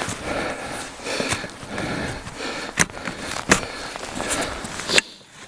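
Tent fabric rustling and scraping as the tent is being put up, with a few sharp clicks from the frame about three, three and a half and five seconds in.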